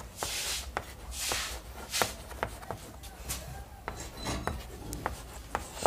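Chalk writing on a chalkboard: sharp taps of the chalk meeting the board and short scratchy strokes as letters are formed.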